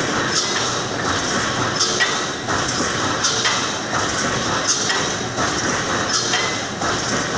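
Automatic reinforcing mesh welding machine running: a steady mechanical clatter with repeated metallic clanks, roughly one a second.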